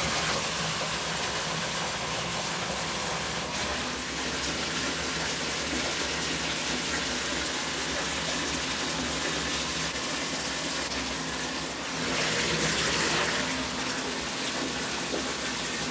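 Bath tap gushing into a partly filled bathtub, a steady rush and splash of water that swells louder for a moment about three quarters of the way through.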